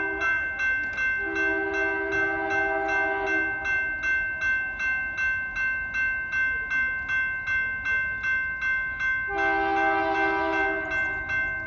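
Railroad crossing bell ringing steadily at about two strikes a second while the signal is active. An approaching freight locomotive's air horn sounds twice behind it: a long blast about a second in and a shorter one near the end.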